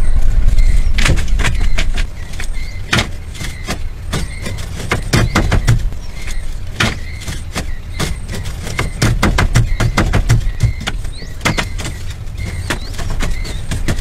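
A mat of thin wooden sticks tied with string clattering and clicking as it is laid on a bed frame and pressed down by hand, giving irregular sharp clicks over a steady low rumble.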